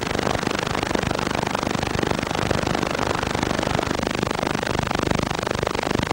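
A steady, dense rattling crackle, without pauses.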